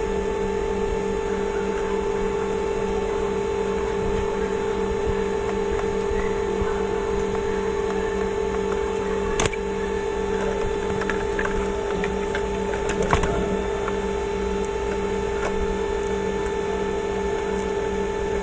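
Steady electrical hum with a constant background hiss, broken by a sharp click about halfway through and a few small clicks a little later.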